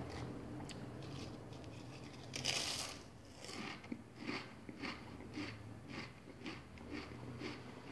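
A person biting into and chewing Pringles potato crisps. There is a crunchy bite about two and a half seconds in, then steady chewing crunches at about two a second.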